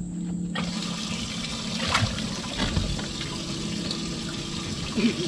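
Water pouring and splashing into a bass boat's livewell from its pump, starting suddenly about half a second in, while a fish is handled for culling.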